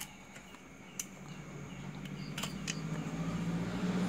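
A low, steady motor hum grows gradually louder over the last three seconds. A few light clicks come from speaker parts being handled.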